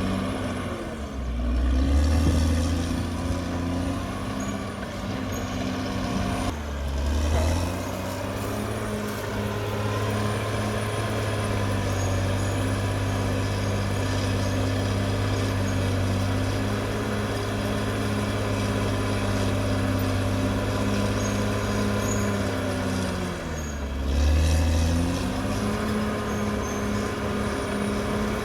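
Caterpillar D6R XL bulldozer's diesel engine running steadily, its note dipping and recovering three times (near the start, about seven seconds in and near the end) with a louder low rumble at each dip.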